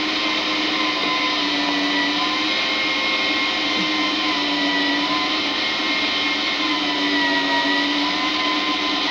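A small motor running steadily with a whine whose pitch wavers slightly, then shutting off abruptly at the very end.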